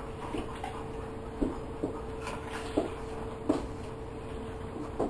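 A dog pulling a refrigerator door open, heard as about half a dozen light, scattered clicks and knocks over a faint steady hum.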